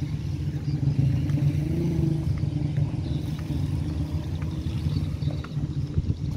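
Motorbike engine running steadily at low speed.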